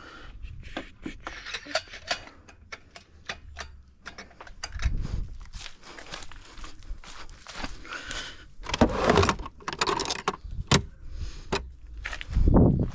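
Metal tools and parts clicking and clattering, with several louder bumps and rustles.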